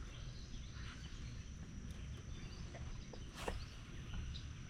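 Quiet lakeside ambience: a steady high insect drone with scattered faint chirps over a low rumble, and one sharp click about three and a half seconds in.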